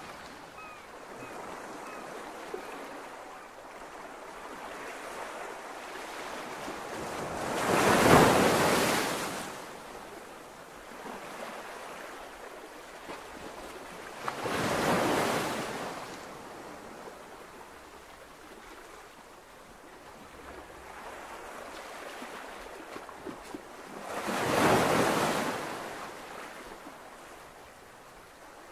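Ocean surf: a steady low wash of water with waves breaking three times, each swelling up and falling away over a couple of seconds.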